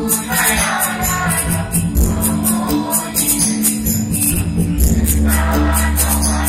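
Live chorus song sung by a large group of singers with band accompaniment: a quick, steady jingling percussion beat over sustained bass notes.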